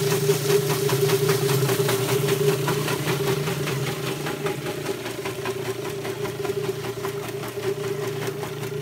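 A motor-driven machine running steadily, with a steady hum and a fast, even pulsing over it.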